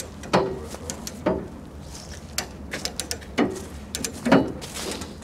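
Steel bomb trolley's ratchet mechanism being worked, a metallic clunk with clicks about once a second.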